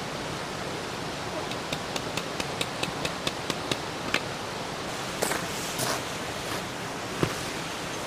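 Hands working a corner of a DD Tarp on gravel: a run of quick light clicks, about five a second, then a louder rustle and crinkle of the tarp fabric just past the middle, over a steady rushing background noise.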